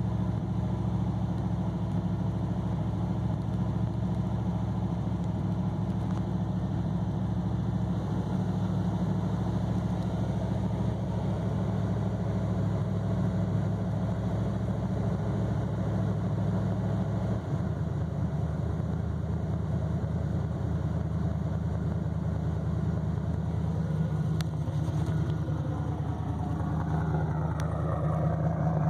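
Mazda RX-7's engine idling steadily on a 35-degree cold start, on the owner's own MegaSquirt tune. A little past halfway the low idle note shifts and settles.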